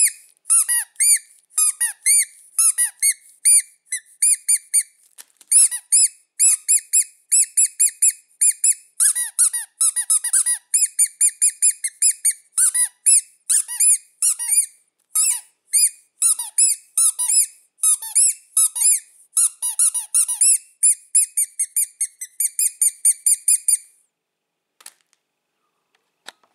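Rubber squeaky toys squeezed in quick strings of short high-pitched squeaks, several a second, that stop a couple of seconds before the end.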